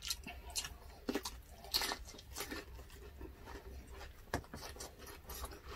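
Close-miked mukbang eating: chewing and biting grilled meat and fresh green chili, with irregular crunches and sharp clicks.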